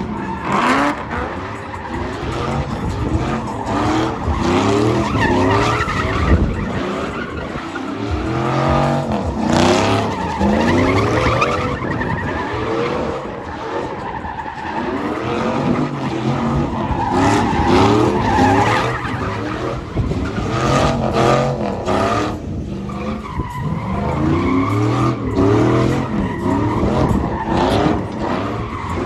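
Car engines revving hard, their pitch rising and falling over and over, while tires squeal and spin.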